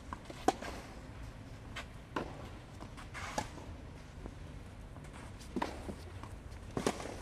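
Tennis rally on a clay court: a string of sharp pops as rackets hit the ball and the ball bounces, about one every second or so, the loudest about half a second in.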